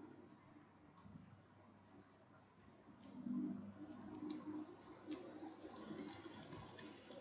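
Faint computer keyboard typing: scattered key clicks starting about a second in and coming thicker in the second half, over a low hum that swells about three seconds in.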